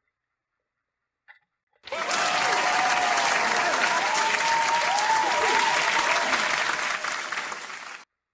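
Crowd applause and cheering sound effect, starting abruptly about two seconds in and cutting off sharply near the end.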